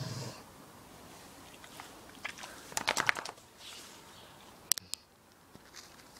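A dog chewing, with a quick run of sharp crunches about three seconds in and a few more just before five seconds.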